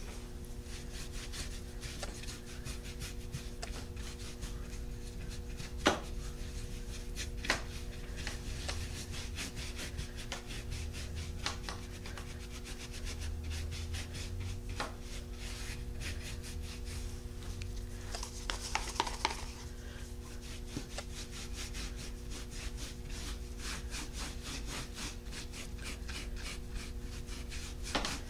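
Round wax brush scrubbing soft dark wax into a raised, textured paste surface: a continuous scratchy rubbing, with two sharper clicks about six and seven seconds in.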